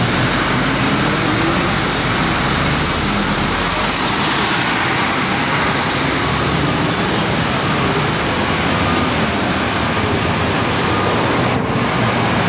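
Steady road traffic noise from cars and double-decker buses passing on a busy city street.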